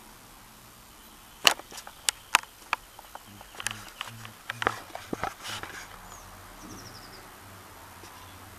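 A quick run of sharp clicks and knocks, about a dozen over four seconds, the first the loudest. Then a bird twitters faintly.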